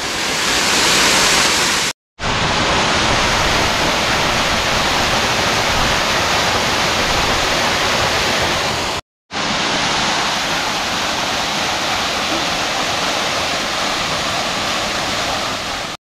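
Small waterfall pouring over a rock ledge and splashing onto a boulder into a pool, heard close up as a steady rush of falling water. The sound cuts out completely twice for a moment, about two seconds in and about nine seconds in.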